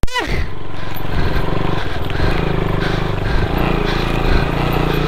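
Motorcycle engine running under way, heard from on the bike, holding a steady note with small changes in pitch. A short falling sound comes right at the start.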